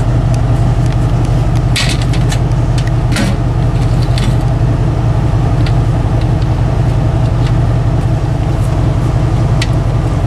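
Vehicle engine and road noise while driving: a steady low hum and drone, with a couple of sharp rattles about two and three seconds in.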